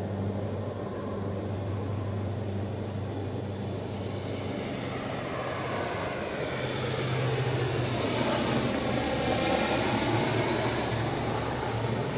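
Freight train cars rolling past, their steel wheels rumbling on the rails over a steady low hum. The rolling noise builds from about a third of the way in and is loudest near the end.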